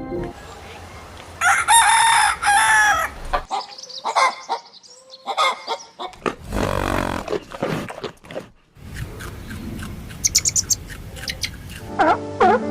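Rooster crowing twice, each crow long and loud, with chickens clucking and shorter calls in between and a run of quick high chirps near the end.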